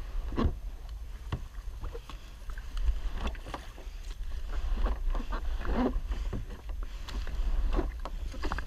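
Kayak paddle pushed against the bottom and bank of a shallow creek to pole a plastic sit-on-top kayak along: irregular knocks and scrapes of the paddle and hull.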